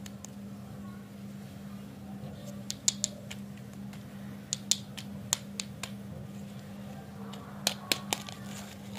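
Plastic lollipop wrappers crinkling, with short sharp crackles and clicks in a few clusters, over a steady low hum.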